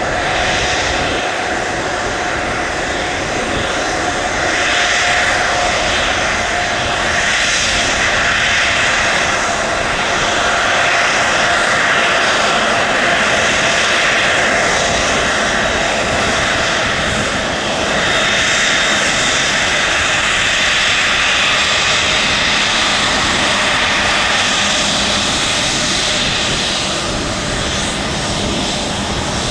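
Airliner engines running as the plane taxis: a loud, steady rushing whine with a held tone underneath, swelling and easing a little.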